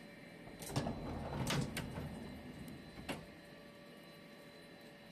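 CNC lathe's sliding enclosure door being opened: a rumbling slide with several sharp clunks over the first three seconds, then only a faint steady machine hum.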